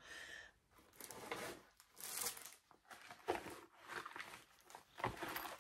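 Rustling and crinkling in several irregular bursts as a cross-stitch piece is handled and pushed back into its small storage case.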